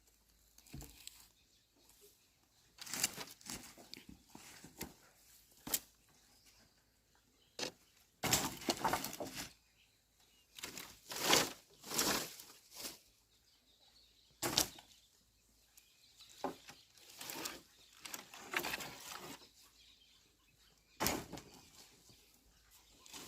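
Irregular bursts of rustling, each about a second long, with a few sharp knocks in between.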